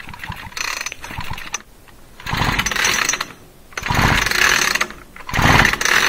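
Ryobi chainsaw's recoil starter pulled four times in quick succession, each pull whirring and turning the engine over without it firing: the spark plug is out and resting against the metal for a spark test.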